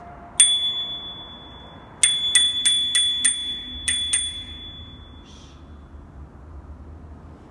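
Bicycle bell being rung: a single ring, then a quick run of about seven rings that fades away.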